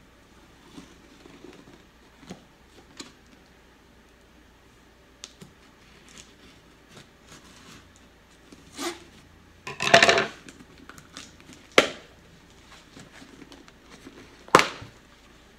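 Scissors scraping and slicing along the packing tape of a cardboard box, with small taps and scrapes. Later come a few louder sharp knocks and one loud half-second rasp, about two-thirds of the way in, as the tape and cardboard flaps are worked open.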